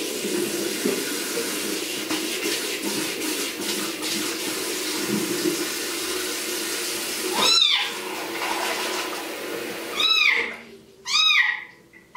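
Water from a bathroom sink tap running steadily, then stopping about ten seconds in. A kitten of about six weeks meows three times, each cry rising and falling, the first midway and two more near the end.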